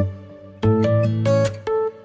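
Background instrumental music of plucked-string notes with a regular beat; it dips briefly after the start and picks up again about half a second in.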